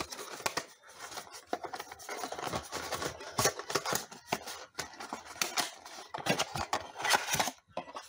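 Cardboard packaging being handled: brown cardboard inserts pulled and folded out of a box, giving irregular rustling and scraping with small clicks throughout.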